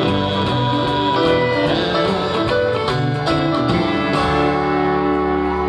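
Live band playing with strummed acoustic guitar, electric bass and keyboard. About four seconds in they hit a chord and hold it ringing, the closing chord of the song.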